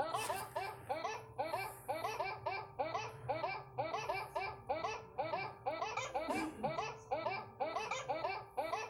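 A dog giving short rising yelps in a fast, even rhythm, about three a second, without a break.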